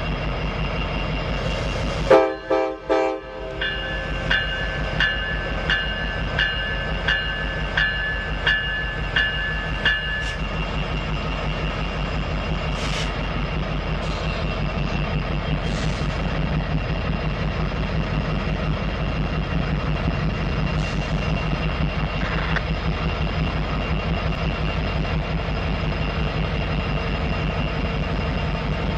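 Freight diesel locomotive horn giving a few short, loud blasts, then a bell ringing about one and a half strikes a second for several seconds. The whole time, the diesel engines of the locomotive consist keep up a steady low drone.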